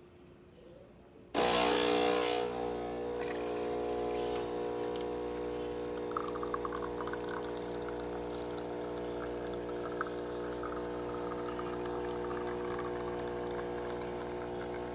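DeLonghi Magnifica espresso machine brewing a shot: the vibratory pump cuts in suddenly with a loud rush about a second and a half in, then hums steadily while espresso trickles into the cup from about six seconds in. The machine is running normally.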